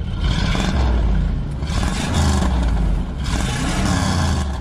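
Car engine running and revving loudly, a heavy low drone with a rushing noise that swells several times.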